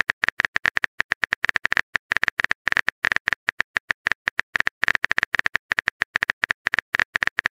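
Phone keyboard typing sound effect: a fast, uneven run of short clicks, several a second, as a text message is typed out letter by letter.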